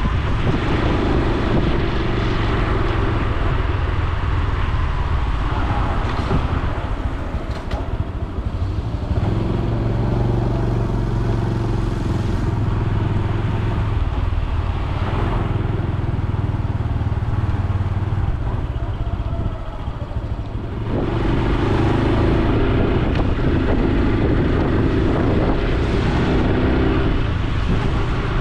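Honda Super Cub C125's air-cooled single-cylinder four-stroke engine and exhaust while riding, its pitch rising and falling with throttle and gear changes. It eases off twice, about a quarter of the way in and about two-thirds in, then pulls harder again, over a steady rush of wind.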